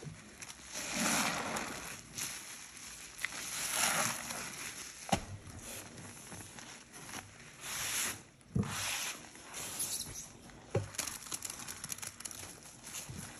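Rubber-gloved hands squeezing and pressing sponges in thick white foamy cleaning paste: wet squelching and crackling foam, in several separate squishes with a few small clicks between.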